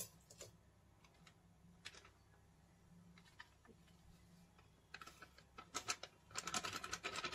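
A scissors snip and scattered rustles of a plastic-foil mix packet being cut open and handled. From about six seconds in comes a dense, fast crackling and scratching as the packet is shaken out and the dry gulab jamun mix is worked by hand in a steel bowl.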